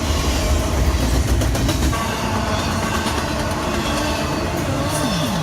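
Loud, steady rumble of a vehicle in motion, with faint clicks.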